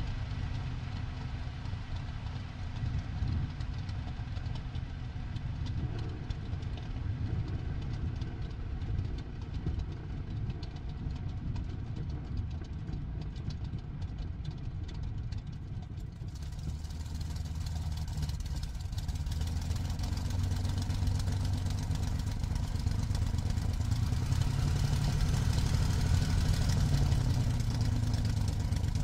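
Daimler-Benz DB605 inverted V12 of a Messerschmitt Bf109G-2, heard from the cockpit, running at low power through the landing and the rollout on the ground. A hiss joins about halfway through, and the engine grows gradually louder toward the end.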